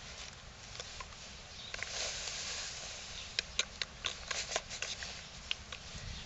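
Rustling and handling noise close to the microphone, with a quick irregular run of sharp clicks about halfway through, as something small is worked in the hands.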